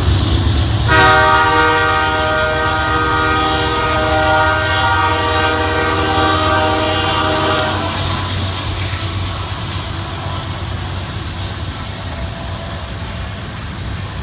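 Horn of the lead Canadian Pacific diesel locomotive sounding one long blast of about seven seconds, starting about a second in, over the steady low rumble of tank cars rolling past on the rails. After the horn stops only the rumble of the rolling cars remains.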